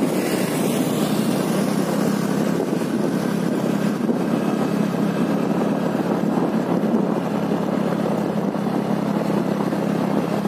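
Two-wheeler's engine running at a steady riding speed, a constant drone that holds its pitch, heard from the moving bike.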